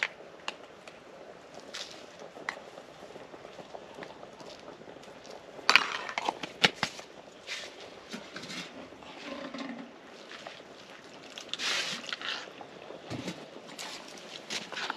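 Scattered clinks, taps and knocks of a metal spoon, bowls and a small bottle being handled, with a louder clatter about six seconds in and a brief rustling scrape around twelve seconds.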